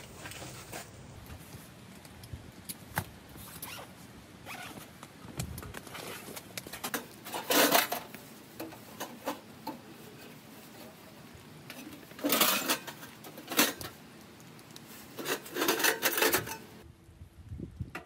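A zipper pulled in several short rasps of about half a second to a second each, with a longer run of quick strokes near the end, among small clicks of handled gear.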